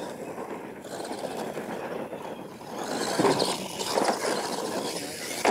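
Radio-controlled monster truck's motor and drivetrain whirring as it drives over dirt. It gets louder about three seconds in, with sharp peaks around three and four seconds as the truck takes a jump.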